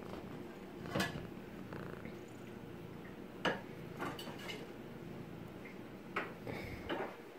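Kitten purring steadily while it is petted and rubs against a hand, the purring fading out near the end. Several short sharp clicks sound over it, about a second in, twice in the middle and once near the end.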